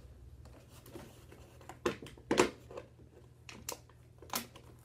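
Doll box packaging of cardboard and plastic being handled and pulled apart: a handful of short, sharp rustles and snaps, the loudest about two and a half seconds in.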